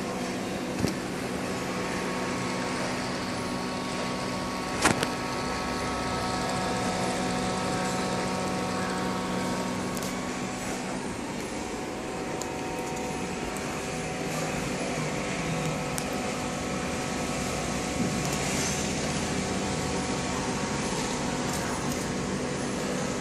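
Aquarium pump and filter equipment running: a steady hum over a hiss of moving water. A sharp knock about five seconds in, and a smaller one just under a second in.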